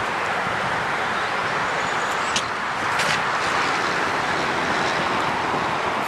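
Steady rush of road traffic noise, with two short sharp clicks about two and a half and three seconds in.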